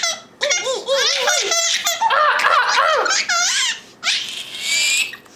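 Baby laughing hard in rapid, pulsing belly-laugh bouts, ending in a high-pitched squeal of laughter.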